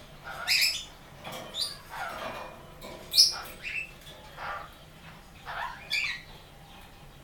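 Sun conure giving a string of short squawks and chirps, about seven in all, several sliding down in pitch, falling quiet near the end.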